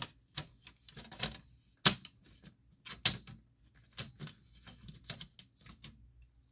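Irregular plastic clicks and knocks from a BRK 79R smoke alarm's housing and cover being handled on its mount, with two sharper knocks about two and three seconds in.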